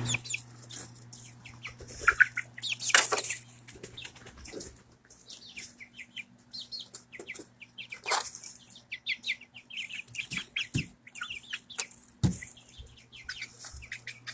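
Young chickens chirping and peeping in many quick short calls, with a few louder scuffling bursts about three and eight seconds in. A steady low hum runs underneath.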